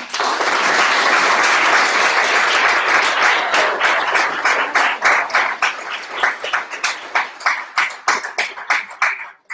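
Audience applauding: a dense wash of clapping that, after about four seconds, thins into scattered separate claps and dies away near the end.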